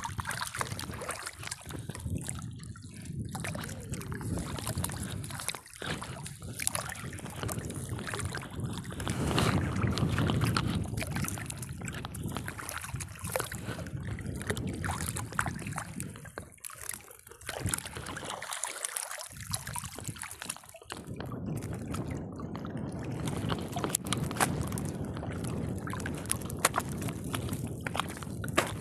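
Water sloshing and splashing against a small fishing raft as a gill net is hauled in by hand and fish are picked out of the mesh. There are scattered small clicks and knocks, and the splashing is loudest about a third of the way through.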